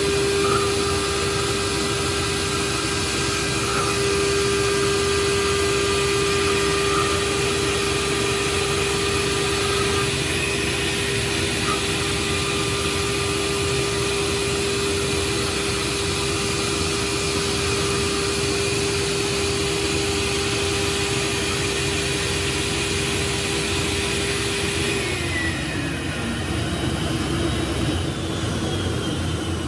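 The router spindle of a Powell CNC DCT3 digital cutting table milling 14 mm acrylic: a steady whine over a constant rushing noise. About 25 seconds in, the whine drops in pitch as the spindle winds down.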